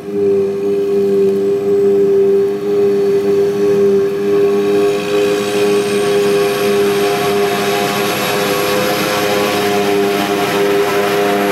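Claas Jaguar 950 forage harvester at work chopping grass and blowing it into a wagon: a loud, steady machine whine over the engine drone, with a rushing hiss that grows stronger from about halfway.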